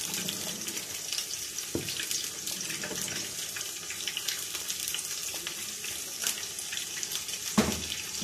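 A ladle stirs fried pakoras through a pot of hot, steaming kadhi: wet stirring and sloshing over a steady hiss, with a few knocks of the ladle against the pot.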